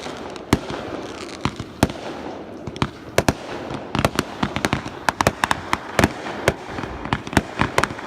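Fireworks display: sharp bangs of exploding shells over a steady hiss and crackle, a few seconds apart at first, then coming rapidly one after another from about halfway through.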